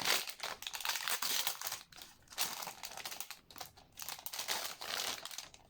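Packaging wrap crinkling and rustling in uneven handfuls as a sealed merch flip book is opened by hand.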